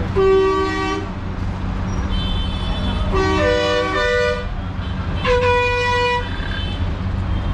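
Vehicle horns sounding in street traffic: three blasts of about a second each, one right at the start, two horns overlapping about three seconds in, and another just past five seconds, over a steady low hum.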